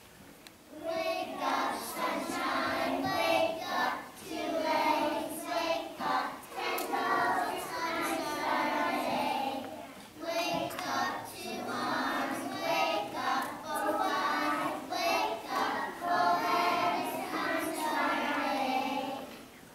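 A group of preschool children singing a song together, with a short break about halfway through.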